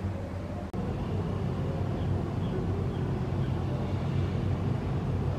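Outdoor ambience of distant road traffic: a steady low rumble, with a few faint high chirps in the middle.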